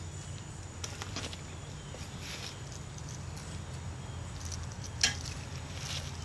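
Footsteps and the handling of small tools and screws: scattered light knocks and rustles, with one sharp click about five seconds in, over a steady low hum.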